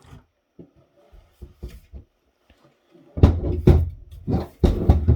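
Handling noise from the opened rack-mount mixer: a few light clicks, then a cluster of loud knocks and thumps starting about three seconds in.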